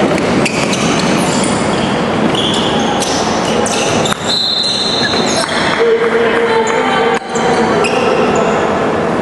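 Basketball game sounds in an echoing gym: the ball bouncing on the court and short, high squeaks scattered throughout.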